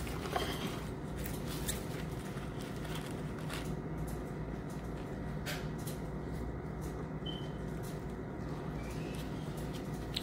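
Gloved hands handling a wet rice-paper wrapper, lettuce and shrimp, making a few faint soft clicks and rustles against a steady low room hum.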